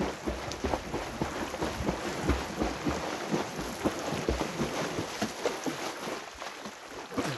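Splashing of a swimmer's arm strokes and kicks in a river pool: a quick, irregular run of short splashes, with wind rumbling on the microphone.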